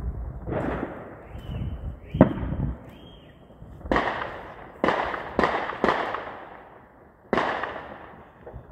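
A string of about seven explosive bangs at irregular intervals of roughly half a second to a second and a half. Each has a sharp onset and a long echoing tail, and the sharpest, loudest crack comes about two seconds in.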